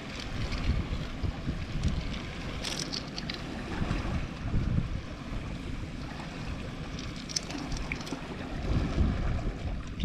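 Wind buffeting the microphone over the wash of surf on a rocky shore, with a few light clicks as rock snails are picked off the rock.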